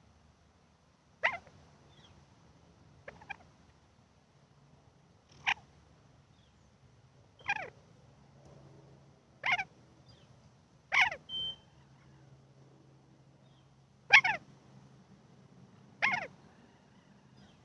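A pet animal calling over and over: short cries that fall steeply in pitch, about one every two seconds.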